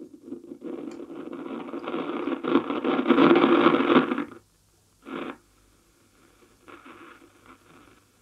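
The Grundig 2140 valve radio's loudspeaker on AM, giving out static and noisy reception as its tuning knob is turned. The sound swells over the first few seconds and cuts off suddenly about four seconds in, with a short burst about a second later and a fainter stretch near the end.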